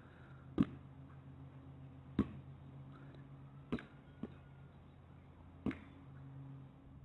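A ball being hit back and forth between a person's hands and a dog's head: five short, sharp smacks, mostly about a second and a half apart, one of them weaker, over a low steady hum.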